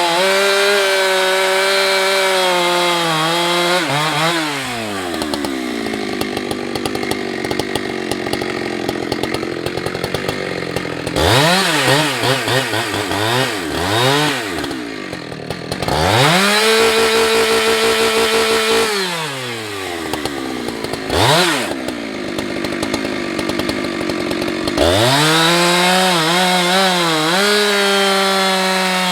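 Husqvarna 365 two-stroke chainsaw cutting wood at full throttle, dropping back to idle about four seconds in. It is revved up and down several times in the middle, then runs at full throttle again through the last few seconds before easing off near the end.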